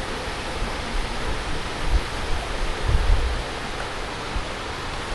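A steady rushing hiss of outdoor noise, with low rumbles about two and three seconds in.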